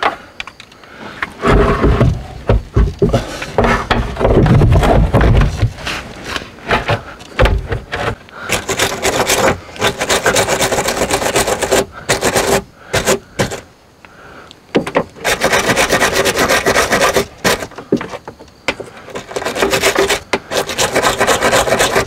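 Wire brush scrubbing corroded copper battery cable ends in runs of rapid back-and-forth strokes from about eight seconds in, with short pauses between runs. It is cleaning off crusty green corrosion. Before that come a few seconds of heavy knocks and thuds.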